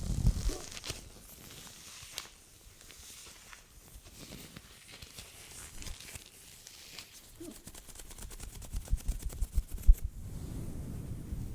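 A woman hiccupping, heard close up: a sharp hiccup at the start and a short one about seven seconds in. Between them come soft rustles, and a quick run of clicks and taps follows before ten seconds; the loudest tap falls at the end of that run.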